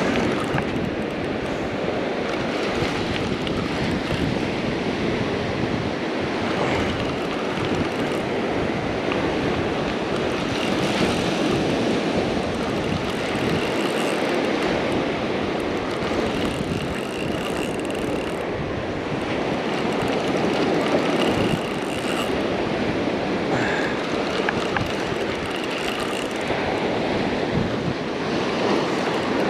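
Steady rushing noise of ocean surf breaking on the beach, mixed with wind on the microphone.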